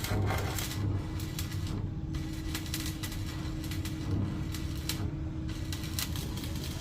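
A steady low machine hum with a constant mid-pitched tone, overlaid by frequent small clicks and knocks.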